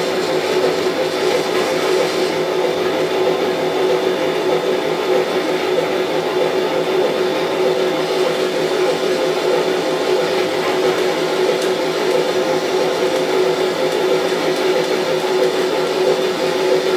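On30 model steam locomotive running along the track with a train of small cars, its electric motor whirring steadily with a few held tones over the rolling of the wheels.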